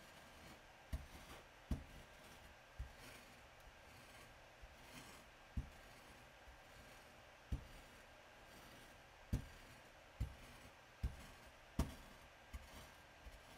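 White pestle grinding a yellow paste in circles on a frosted glass slab: faint rubbing, broken by about ten low knocks at uneven intervals as the pestle bumps the glass.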